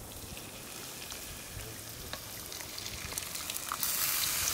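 Masala paste frying in oil in a pot, sizzling steadily as tomato purée is poured onto it; the sizzle grows louder about four seconds in.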